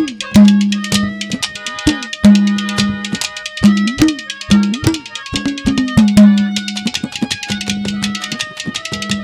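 Instrumental folk music: hand drums playing a fast rhythm with deep bass strokes that bend up and down in pitch, over held melodic notes.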